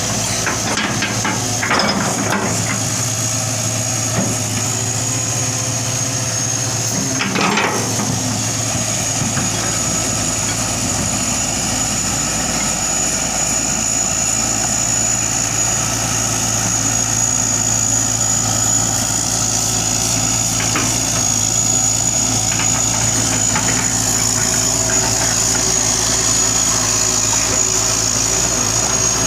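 Hitachi excavator's diesel engine running steadily, with a high steady whine over it and a sharp knock about seven seconds in.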